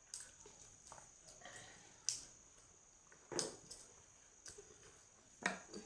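A person chewing food close to the microphone, with scattered short mouth sounds and a few louder ones about two, three and a half, and five and a half seconds in.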